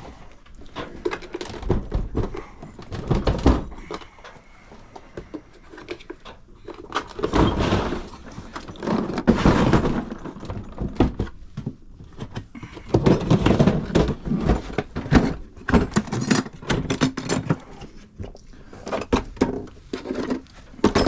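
Irregular clicks, knocks and scraping of hand tools against metal plumbing parts as a shower valve cartridge is worked into place, with a few longer stretches of scraping.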